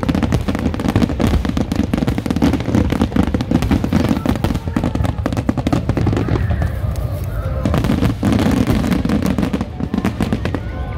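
A rapid barrage of aerial firework shells bursting, with many bangs overlapping almost without a gap. The barrage thins briefly about six seconds in, then picks up again.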